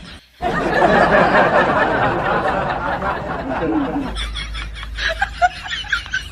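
Laughter, dense and continuous, ending about four seconds in.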